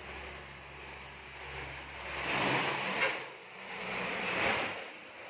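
Vehicle engine running in a flooded street, with two swelling rushes of water about two and four seconds in, as of traffic pushing waves through the floodwater.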